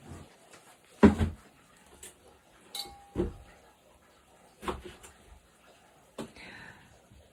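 Knife chopping pineapple on a cutting board: a handful of separate, irregular knocks, the loudest about a second in.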